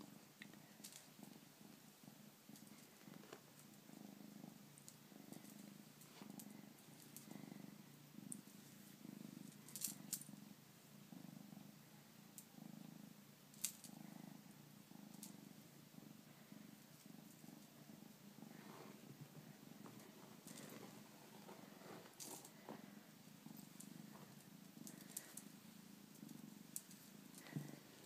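Bengal kitten purring softly, a low steady purr that pulses in a regular rhythm, with a few sharp clicks along the way.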